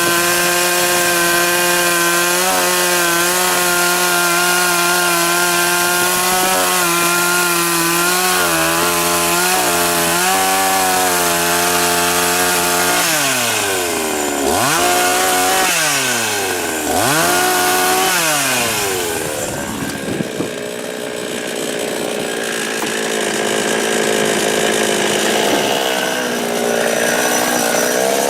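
52cc two-stroke chainsaw with a 20-inch bar held at high revs while cutting willow logs, its note dipping slightly now and then under load. About halfway through, the pitch falls and climbs again three times. It then settles to a lower, quieter running before rising again near the end.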